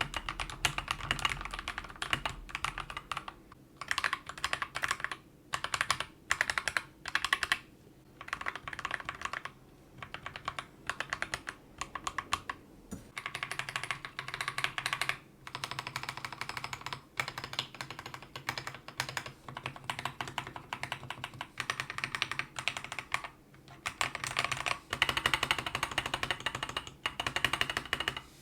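Mechanical keyboard with Akko CS Jelly switches being typed on in bursts of rapid key clacks with short pauses between, first lubed Jelly White switches, then stock Jelly Pink switches.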